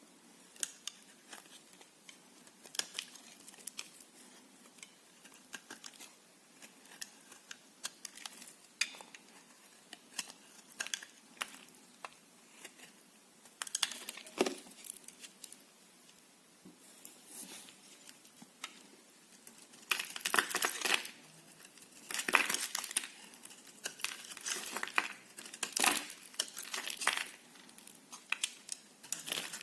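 Knife cutting through dry soap: a series of crisp cracks and scrapes, louder and closer together in the last third.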